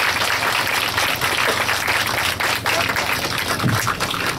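Audience applauding: many hands clapping at once in a steady round.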